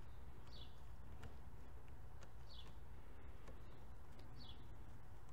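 A bird chirps three times, each a short high note falling in pitch, about two seconds apart, over a low steady background rumble with a few faint ticks.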